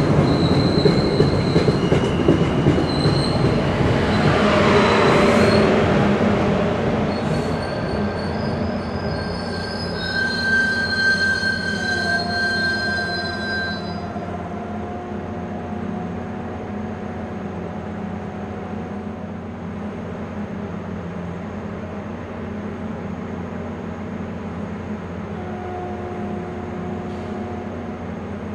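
MBTA commuter rail coaches rolling slowly along the platform, their wheels squealing on the rails in several high, steady tones over the rumble. About halfway through the sound cuts to the steady low hum of the train standing at the platform.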